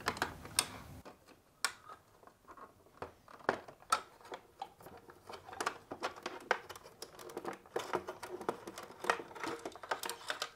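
Scattered small plastic clicks and taps as a refrigerator's ice chute door assembly is unclipped by its retaining tabs and slid out by hand.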